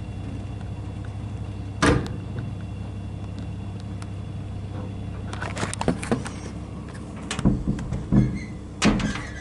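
Lift running in its shaft with a steady low hum, a sharp knock about two seconds in, then a run of metallic clanks and thumps from the lift's old doors and mechanism in the second half.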